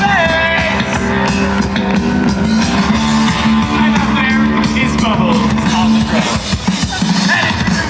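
Live rock music played by a band: guitar and drums with a voice singing over them.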